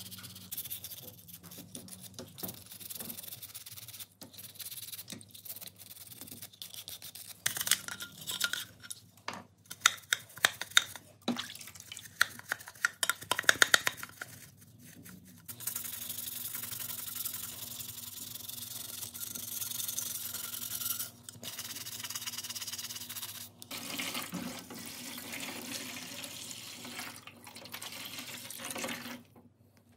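Plastic drill housing parts being scrubbed with a brush in a stainless tray of dirty degreaser: scratchy rubbing with small splashes, and a busier spell of sharp knocks and fast brush strokes in the middle. Later, water poured from a bowl over the parts in the tray, a steady splashing pour to rinse them.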